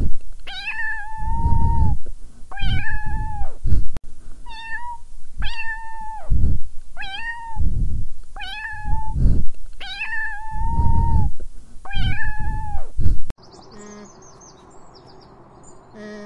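Domestic cat meowing over and over, about a dozen short high meows roughly a second apart, with low rumbling noise beneath them. The meowing stops abruptly about 13 seconds in.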